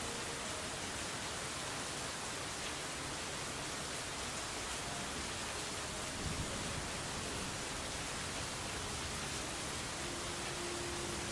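Steady, even hiss of noise, like rain or a white-noise track, with one brief low thump about six seconds in.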